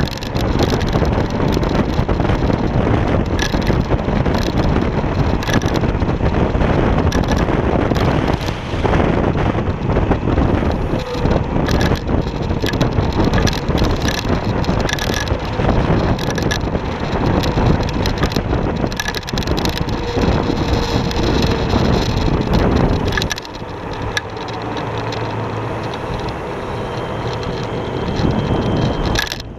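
Wind noise on the microphone and road noise from a Kaabo Wolf King GT electric scooter riding along a street, with frequent short knocks from the road surface. About three-quarters of the way through it drops noticeably quieter.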